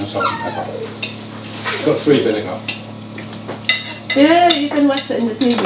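Cutlery clinking and scraping on dinner plates during a meal, with a voice rising and falling about four seconds in.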